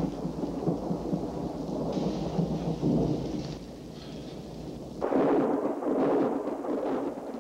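Film soundtrack sound effects: a low, noisy, storm-like rumble that dips for a moment and then grows suddenly louder about five seconds in.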